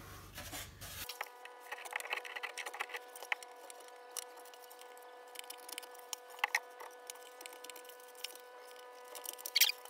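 A wood chisel paring the edge of a plywood shelf piece by hand: irregular light scratches and small taps, with a steady faint hum underneath from about a second in.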